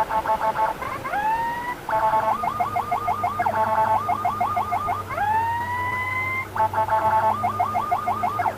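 Ambulance electronic siren switched rapidly from one pattern to the next: quick pulses flipping between two pitches, bursts of fast repeated upward whoops, and twice a slow rising wail that holds its top note before breaking off. The patterns cut into each other every second or so, in the chopped, manually switched style that the uploader jokingly calls an "error" siren.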